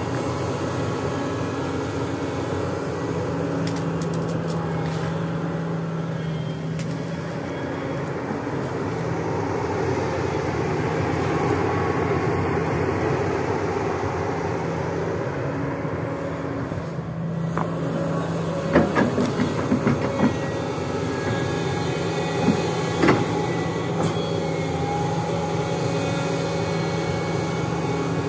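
Sany SY365H hydraulic excavator's diesel engine running steadily under working load as it digs and swings through stumps and roots. About two-thirds of the way in there is a quick series of sharp knocks and cracks, and a couple more come a little later.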